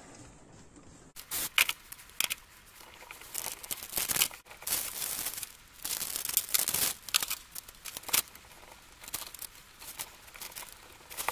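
Clear plastic packaging bag rustling and crinkling while brake lines are handled, starting about a second in, with a few sharp clicks of the fittings.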